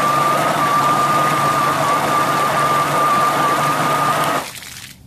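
3D-printed RC snow blower's electric motor and gear drive (Traxxas differential) spinning its impeller and throwing a stream of water out of the chute: a steady high whine over rushing, splashing water. It cuts off sharply near the end as the motor stops.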